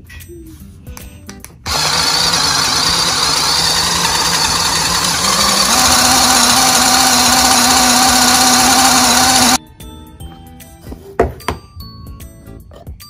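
Cordless mini electric food chopper running for about eight seconds, its blades grinding raw chicken pieces in the plastic bowl; its pitch steps up partway through, and it cuts off suddenly. Faint background music plays before and after it.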